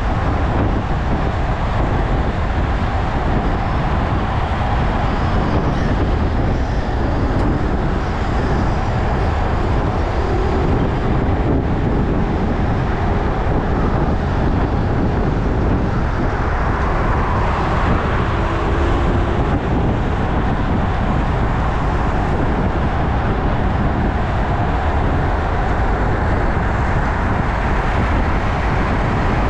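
Steady rush of wind and road noise from a road bike ridden at speed, with car traffic passing alongside on the road.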